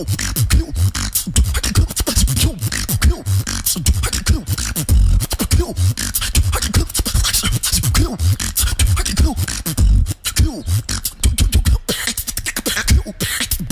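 Solo human beatboxing into a microphone: a fast, driving pattern of deep bass kicks with sharp clicks and snares.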